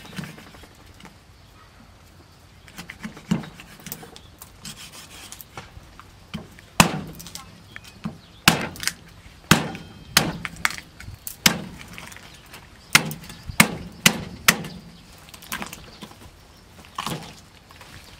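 Cleaver chopping through a whole suckling pig's breastbone and ribs on a wooden table: a dozen or so sharp, irregularly spaced blows, most of them in the middle of the stretch, after a few quiet seconds.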